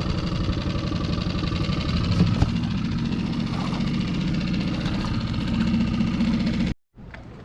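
Small outboard motor on a dinghy running steadily at cruising speed, with a fast even engine pulse. It cuts off abruptly near the end.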